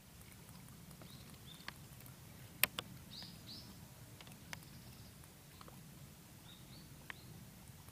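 Faint outdoor ambience: small birds give several short, high chirps, over a low steady rumble. A few sharp clicks cut in, the loudest about two and a half seconds in.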